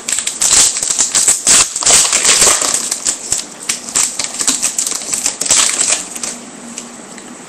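Trading cards and a foil wax-pack wrapper being handled, with a quick run of clicks and crinkles that dies down about six seconds in.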